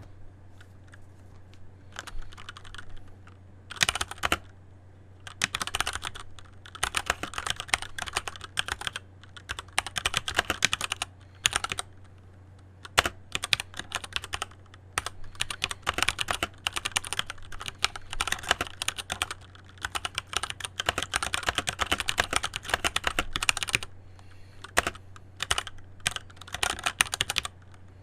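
Typing on a Keychron C1 wired mechanical keyboard, key switches clacking in fast runs broken by short pauses. A low steady hum lies underneath.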